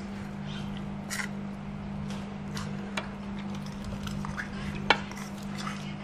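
Spoons clinking against ceramic plates and bowls while eating: a few scattered sharp clinks, the loudest about five seconds in, over a steady low hum.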